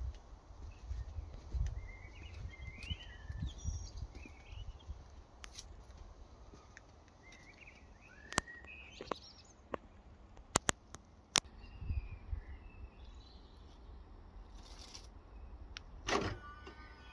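Small birds chirping on and off, over wind rumbling on the microphone, with a few sharp clicks in the middle and a louder pitched sound near the end.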